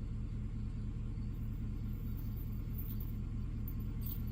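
A vehicle engine idling steadily: an even, low rumble.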